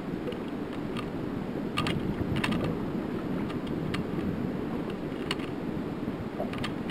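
Steady wind noise and water lapping against a small aluminium boat's hull as it drifts, with a handful of light, sharp clicks scattered through.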